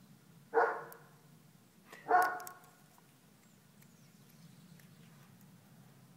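A dog barks twice, about a second and a half apart, over a faint steady low hum.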